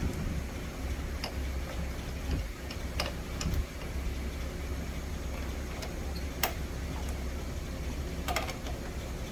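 Milling machine running with a steady low hum while drilling a tap hole in steel, with a few sharp metallic clicks scattered through.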